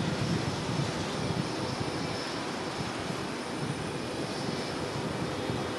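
Jet airliner engines running with a steady, even rush, and a constant electrical hum underneath from a faulty microphone.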